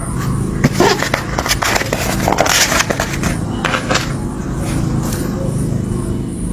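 Sheets of printed paper rustling and crackling as they are handled and moved, in a run of short crackles during the first four seconds, over a steady low hum.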